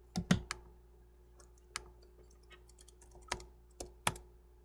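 Computer keyboard keys clicking: three quick presses near the start, then a few single keystrokes spread through the rest, with a faint electrical hum underneath.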